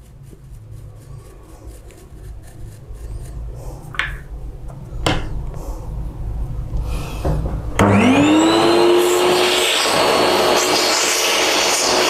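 A few handling knocks over a low rumble, then about eight seconds in a vacuum cleaner switches on. Its motor whine rises quickly and settles to a steady pitch over a loud rush of air as it starts cleaning the copier parts.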